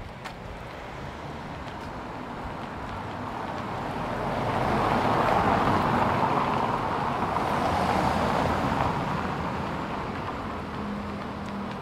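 A car driving past close by on a cobbled street: its tyre and engine noise swells, peaks for a few seconds mid-way, then fades as it moves off ahead.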